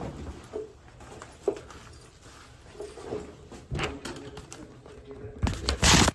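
Handling noise from a phone being carried: scattered knocks and rustles, then a loud rubbing rush near the end as the phone is covered.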